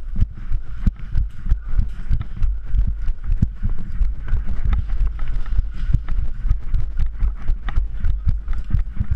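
Footsteps and gear knocks of an airsoft player moving on foot, heard through a body-worn camera: irregular clicks and clatter about three or four a second over heavy low thumps.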